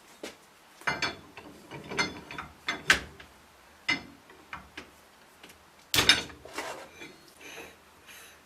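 Irregular metallic clanks, knocks and ratchet-like clicks as the lathe chuck and spindle are worked by hand, with the headstock in low gear, to free the chuck from the spindle taper.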